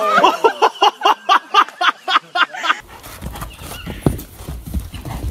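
A person laughing hard in quick, even bursts, about five a second, for nearly three seconds. It cuts to wind rumbling on the microphone and dull hoof thuds of a horse bucking on a dirt arena, the loudest thud about four seconds in.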